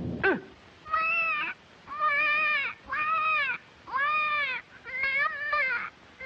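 A high-pitched cartoon voice wailing in a series of about five drawn-out 'waah' sobs, roughly one a second, each rising and falling in pitch. A short falling whistle-like glide comes just before the first sob.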